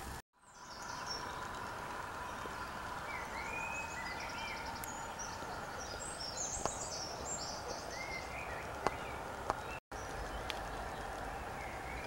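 Wild birds calling in woodland in the early morning: scattered short chirps and trills over a steady background hiss, with a few faint clicks.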